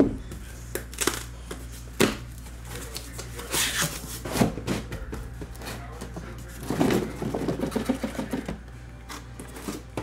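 Cardboard shipping case being opened by hand: a couple of sharp knocks, then scraping and rustling of the cardboard flaps and a run of short clatters as they are pulled back.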